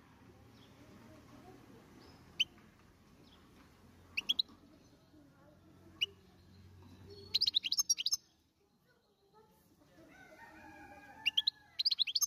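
European goldfinch singing: three single sharp chirps spaced a couple of seconds apart, then two quick bursts of rapid, high twittering notes in the second half.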